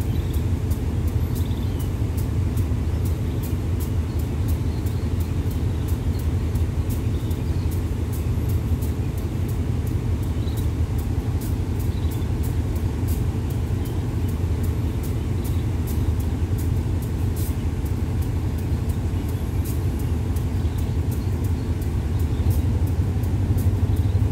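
Passenger train heard from beside an open coach window: a steady low rumble with faint scattered clicks, growing a little louder near the end.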